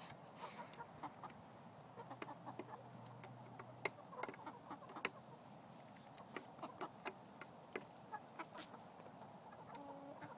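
Faint soft clucking from a small flock of chickens, with scattered light clicks and taps of beaks pecking at food on and around a mirror lying on the ground.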